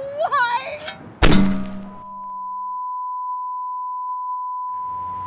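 A heavy thunk of an impact about a second in, then everything drops away under a single steady high-pitched tone: the ringing-in-the-ears sound effect of someone dazed by a blow to the head.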